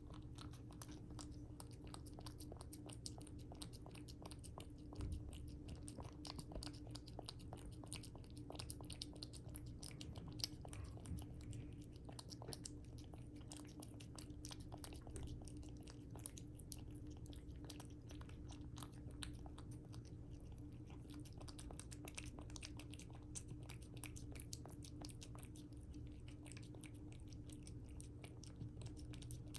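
A cat chewing its food: a close, continuous run of small clicks and crunches, over a steady low hum.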